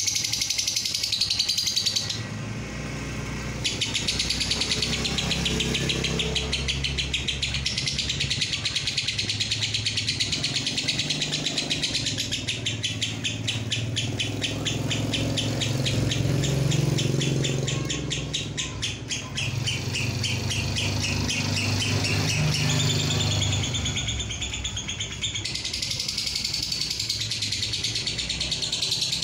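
Lovebird singing a long, very fast chattering trill, the drawn-out 'ngekek' that fanciers prize, with a short break about two seconds in.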